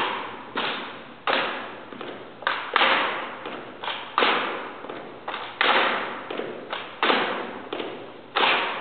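Two ceremonial drill rifles being spun and caught: a quick, uneven series of sharp smacks of hands on the rifles, about one every half to three-quarters of a second, each ringing out with a long echo in a large hall.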